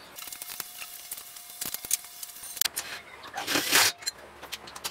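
Cordless drill running against a welded steel frame: a steady motor whine for the first two and a half seconds, then a short loud burst about three and a half seconds in.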